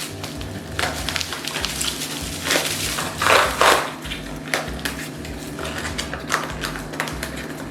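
Makeup palette boxes and packaging being handled and set down: scattered clicks and taps, with a louder crinkling rustle about three seconds in.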